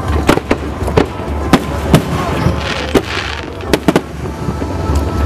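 Aerial fireworks shells bursting in quick succession, about a sharp bang a second, with a patch of crackling from the bursts a little before the middle, over a steady low rumble.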